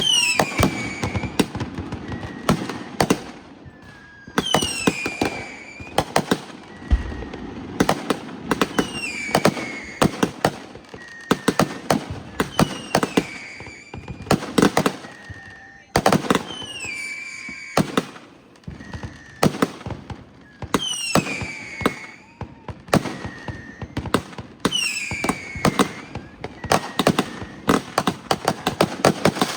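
Fireworks going off: a rapid run of sharp bangs and crackling pops, with a whistle that falls in pitch recurring about every four seconds.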